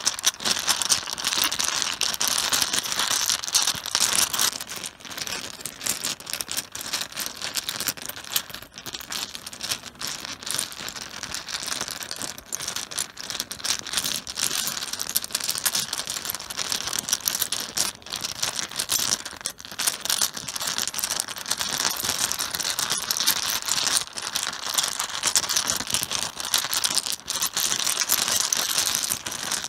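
Mahjong tiles being swirled and shuffled by hand on a cloth-covered table: a continuous, dense clatter of tiles knocking against each other, softened by the cloth.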